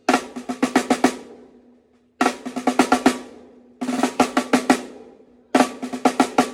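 A drum struck in four short, quick flurries of about eight hits each during a sound check. Each flurry rings out and fades before the next one starts.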